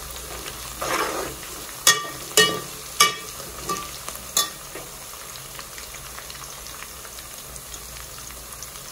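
Sliced onions and green chillies frying in hot oil in a pot, a steady sizzle throughout. In the first half a stirring spoon knocks against the pot about five times, each knock ringing briefly.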